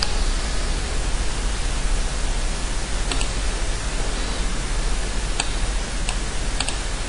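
Steady hiss from the recording microphone, with a few faint computer mouse clicks, some of them double clicks, in the second half.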